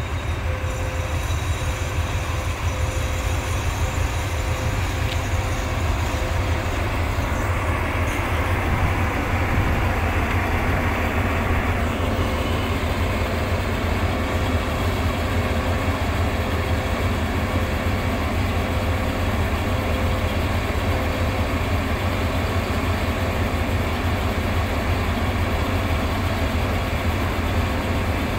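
Diesel locomotives idling and creeping slowly: a steady low engine drone, with a faint tone that pulses about once a second.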